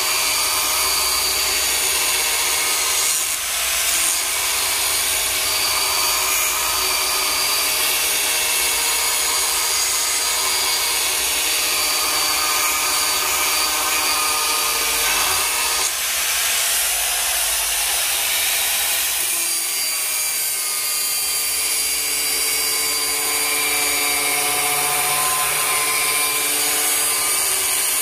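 Angle grinder running steadily under load, grinding a steel axe blade's edge. Its pitch shifts a couple of times as the pressure on the work changes.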